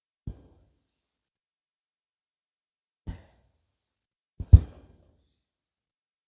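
Three short knocks or thumps during drywall and framing work, a few seconds apart, the last a quick double knock and the loudest.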